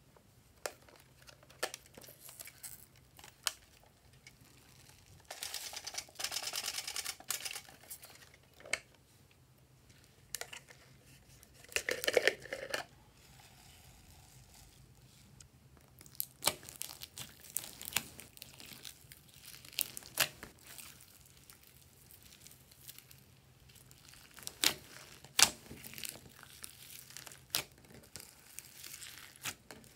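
Glossy slime mixed with foam beads being squished and folded by hand in a glass dish, giving a run of sharp sticky pops and crackles through the second half. Earlier come a few seconds of rustling and a short clatter as containers of add-ins are handled and poured in.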